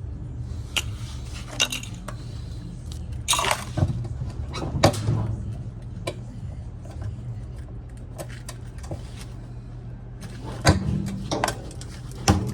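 Scattered metallic clinks and knocks of screws and hand tools being handled as the washer's gear-case mounting screws come out, with a cluster of sharper clinks near the end, over a steady low hum.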